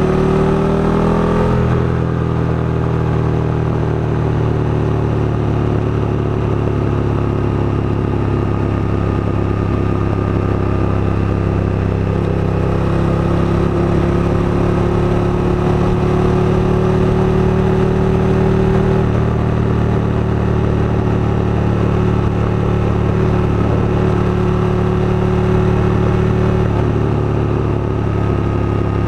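KTM 1290 Super Duke GT's V-twin engine pulling the motorcycle along the road. The revs climb for about a second and a half, then drop, and the engine runs on at a fairly steady speed with small shifts in pitch.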